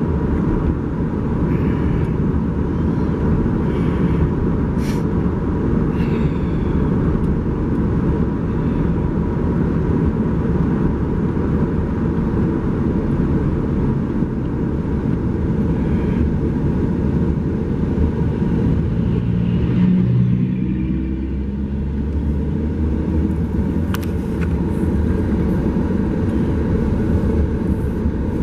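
Car driving: a steady low rumble of engine and road noise, with the engine pitch rising briefly about twenty seconds in.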